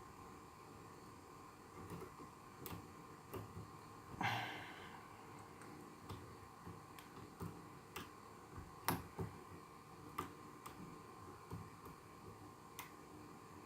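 Faint, irregular small clicks and ticks of a hook pick and pry-bar tension tool working the pins inside a high-security pin-tumbler challenge lock, with one brief louder scrape about four seconds in.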